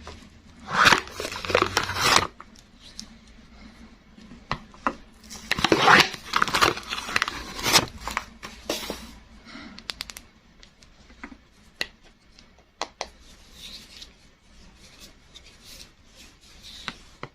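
Soap packaging being unwrapped by hand: crinkling and tearing of the wrapper in two longer spells, about a second in and again from about five to eight seconds in, with scattered light clicks and taps between.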